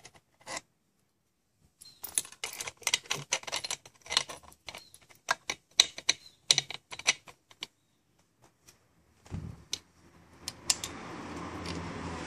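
Steel bolts clicking and clinking against the intake pipe's metal flange as they are pushed through its bolt holes: a quick, irregular run of light metallic ticks lasting several seconds. Near the end a steady rushing noise starts.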